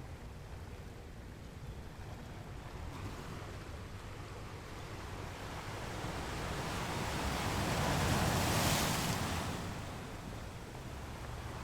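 Ocean surf: one wave swells, breaks and washes back out, loudest about three-quarters of the way through.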